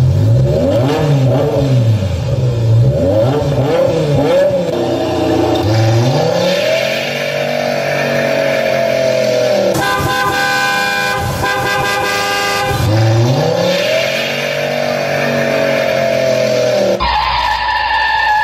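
Recorded car sound effects: engines revving, their pitch sweeping up and down again and again. About ten seconds in, a steady horn-like blare of several tones sounds for about three seconds. A different sound takes over shortly before the end.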